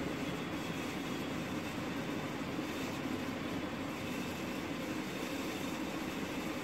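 Steady low rumbling noise, even and unbroken, like running machinery or traffic.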